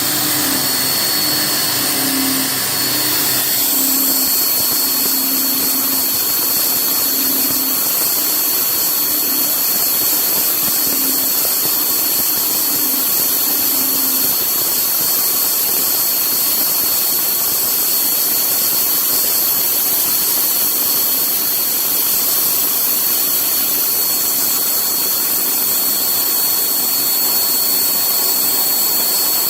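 Haas TM-2P CNC mill running a thread-milling cycle: a steady high-pitched spindle whine over a constant rushing machine noise, which turns brighter and thinner about three and a half seconds in.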